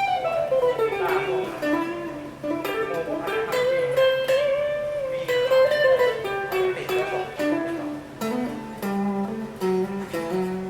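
PRS SE Custom electric guitar on its neck humbucker, played through a Mesa Rectoverb 25 amp: a single-note melodic lead that slides down at the start, holds a long note with vibrato about halfway through, then moves through quicker notes and lower pitches near the end.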